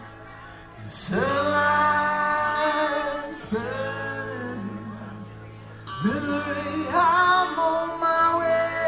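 Live rock band playing electric guitars and bass, with long held notes that swell in about a second in and again about six seconds in over a steady low bass note.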